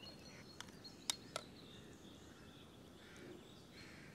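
Three light clicks of cooked mussel shells being pried apart by hand, in the first half. Faint bird chirps in the background.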